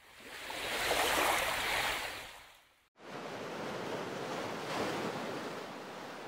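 Sea surf on a beach: a wave's wash swells and fades away over the first three seconds, then after a brief silence a softer, steady surf continues.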